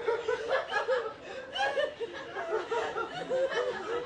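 A group of people laughing together, with chuckles and giggles overlapping in short bursts.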